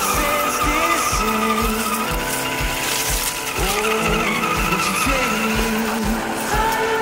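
Background music with a steady drum beat and a wavering lead melody.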